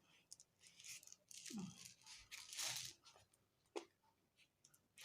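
Faint rustling of paper and a cardboard tube being handled, in a few short bursts, with one small click a little before the end.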